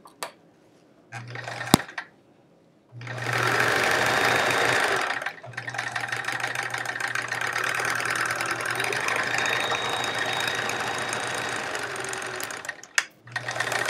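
Vintage 1970s Sears Kenmore sewing machine stitching, running smoothly on a new lug motor belt after oiling. It runs in two spells, a short one of about two seconds and then a longer one of about seven seconds. A faint low motor hum comes before and after the stitching.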